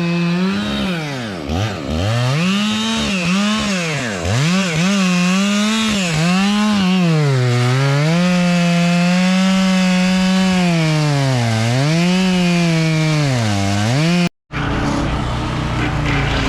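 Small stump grinder's high-revving engine running under load, its pitch dropping sharply again and again as the cutter bites into the stump and bogs, then climbing back. About 14 seconds in it cuts off abruptly and a different, rougher noise follows.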